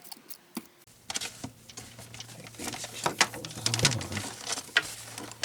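A cloth wiping and scrubbing a plastic Quickshot Maverick 3 joystick, with irregular clicks and scrapes as it is handled, working at dirt that is stuck on. A low steady hum comes in about a second in.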